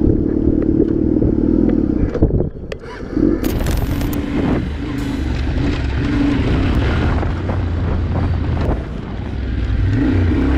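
Motorcycle engine and wind noise at steady highway speed, then, after a cut about two and a half seconds in, a dirt bike's engine revving unevenly as it rides over a rough dirt track.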